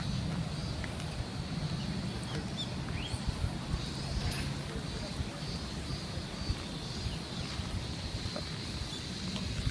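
Open-air hilltop ambience: wind rumbling on the microphone, over a faint steady high-pitched drone.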